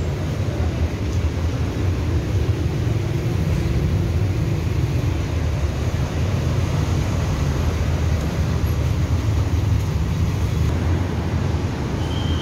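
Busy city road traffic: a steady low rumble of engines and tyres from cars, buses and motorbikes.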